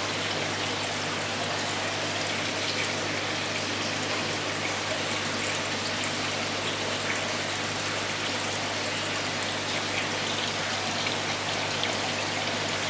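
Aquarium water trickling and splashing steadily from the filter into the tank, with a low steady hum underneath.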